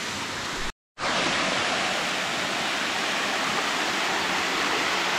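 Small waterfall rushing steadily. The sound drops out briefly just under a second in.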